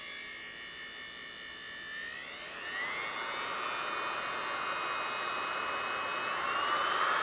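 Rewired electric sewing machine motor running off a variac, a steady whine that rises in pitch and grows louder as the voltage is turned up, about two seconds in and again near the end. The motor runs after its frayed wiring was replaced.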